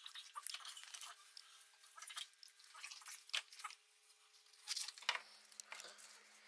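A kitchen knife trimming a raw artichoke on a cutting board: faint, irregular crisp clicks and crunches as the blade cuts through the tough leaves and taps the board, with a louder pair about three-quarters of the way in.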